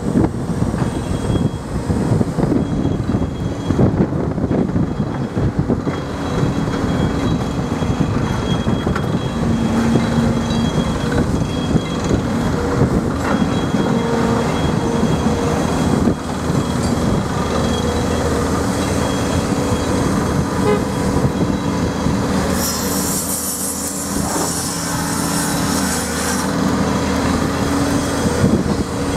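New Holland E265C crawler excavator at work: the diesel engine running steadily under load and the hydraulics driving the boom and bucket as it digs. A high hiss comes in for a few seconds about three-quarters of the way through.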